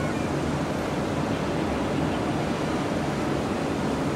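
Steady rumbling hum of distant jet airliner engines as the aircraft taxi across the airport, an even noise with no distinct events.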